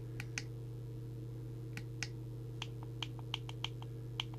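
About ten short, irregular clicks as the up/down buttons on a Midland M-Mini CB radio's microphone are pressed to step through settings, over a steady low electrical hum.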